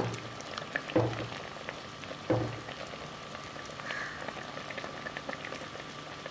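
Prawn curry simmering and bubbling in a clay pot. A wooden spoon stirs it and knocks dully against the pot three times in the first two and a half seconds.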